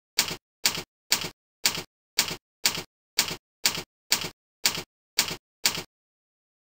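Evenly spaced mechanical clicks, about two a second, each a sharp click with a short rattle after it, as a sound effect timed to text appearing. The clicks stop suddenly about six seconds in.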